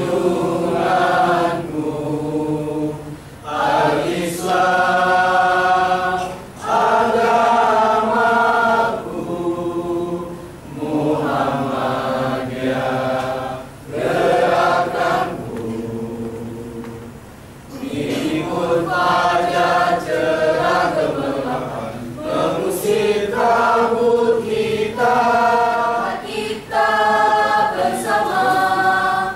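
Student choir of male and female voices singing together, in phrases a few seconds long with short breaks between them.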